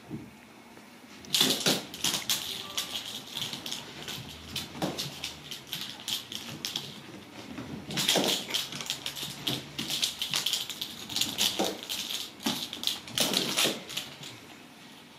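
Ragdoll kittens at play on a rug and wooden floor: bursts of rapid clicking and clattering, starting about a second in and coming in spurts until near the end.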